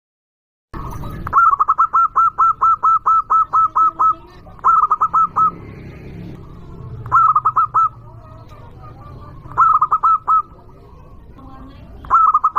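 Zebra dove (perkutut) cooing loudly: starting under a second in, a quick run of about a dozen short staccato notes, then four shorter bursts of a few notes each, spaced a couple of seconds apart.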